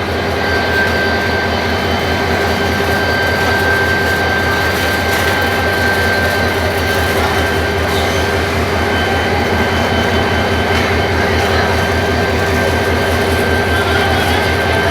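Diesel locomotive running steadily: a continuous low engine hum with a steady high whine over it, the whine's pitch starting to rise just at the end.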